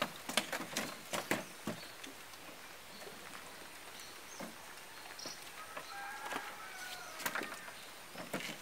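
Light clicks and knocks from handling fishing gear and a steel bowl, clustered in the first two seconds and again near the end. A faint high call lasts about a second, six seconds in.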